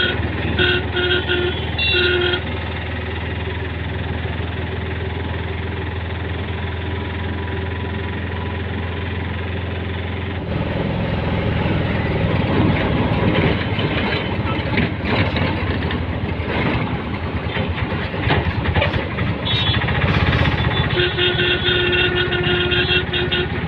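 Auto-rickshaw engine running with road noise while riding along. It gets louder and rougher about ten seconds in. A repeated beeping tone sounds briefly near the start and again near the end.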